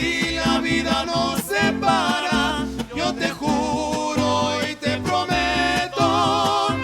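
Mariachi ensemble playing an instrumental passage: a melody with vibrato over strummed guitar rhythm and a plucked bass line.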